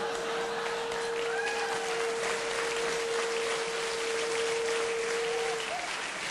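Audience applauding as the giant canary cage is wheeled onto the stage, with a steady held note sounding over the clapping until it stops near the end.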